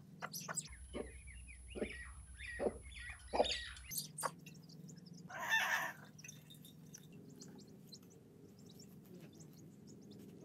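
Young chicks peeping repeatedly while a mother hen clucks. A brief rustling noise comes about halfway through.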